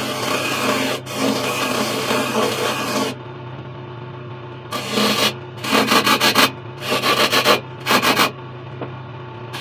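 Wood lathe turning a pine table leg: the lathe motor hums steadily while a hand-held steel chisel scrapes and cuts the spinning wood. There is one long cut of about three seconds, a pause with only the motor, then four short cuts in quick succession.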